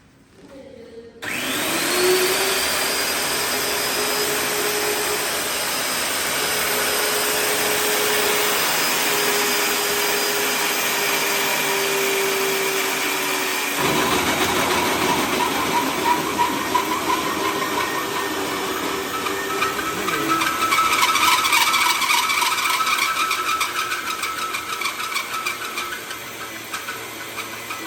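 The motor of a WELPING HC-1X pipe hole cutting machine starts about a second in with a rising whine and then runs steadily. About halfway through the sound turns rougher and louder as the cutter works into the steel pipe. It eases off near the end.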